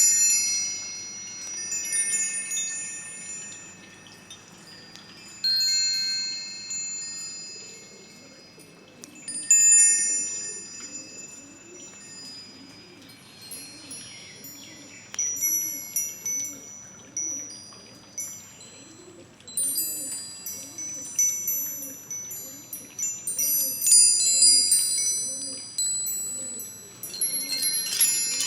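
Wind chimes ringing as they are struck at irregular moments, clusters of high metallic tones that fade slowly, busier and more overlapping near the end.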